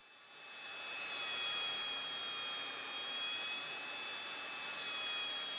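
Belt sander running with a steady high whine, coming up over about the first second and then holding. The belt is tracked over to one side, where it digs in, and the sander is slightly bogged down.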